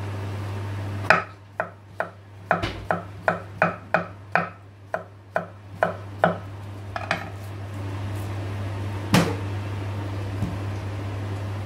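Kitchen knife slicing a cucumber on a wooden chopping board: about fifteen sharp chops over some six seconds, roughly three a second, then one louder knock about nine seconds in. A steady low hum runs underneath.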